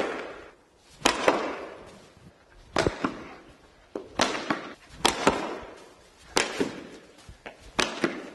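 Cricket bat striking balls fed in quick succession, about one crack a second, each echoing in a large indoor hall. Several hits come as quick double knocks.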